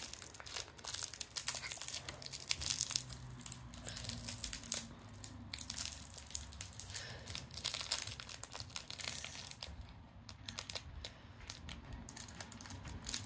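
A small plastic packet crinkling and crackling in the hands as fingers pick and tug at it to tear it open. The crackles are quick and irregular and thin out near the end.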